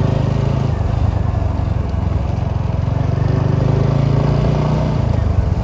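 Motorcycle engine running steadily at low cruising speed, heard up close from the rider's own bike.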